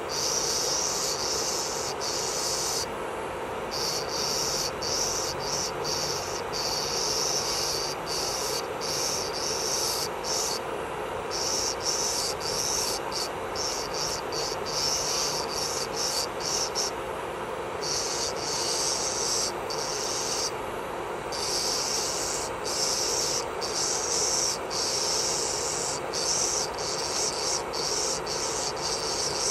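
Electric nail drill (e-file) running at a steady whine while its bit grinds off gel polish. A high, scratchy grinding comes and goes many times as the bit touches the nail and lifts away.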